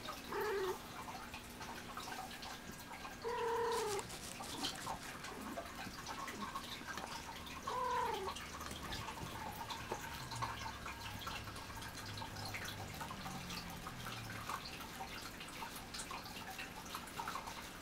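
Domestic black cat meowing three times: a short call at the very start, a longer one about three seconds in, and a third about eight seconds in that falls in pitch.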